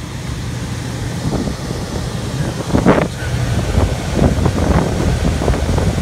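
Air rushing and buffeting the microphone in irregular gusts over a steady low hum, from a Carrier packaged heat pump with its indoor blower running.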